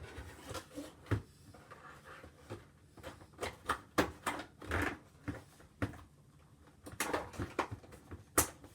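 Packaging of a toy water gun being opened and handled: irregular short knocks, crinkles and rustles, with a quieter stretch partway through.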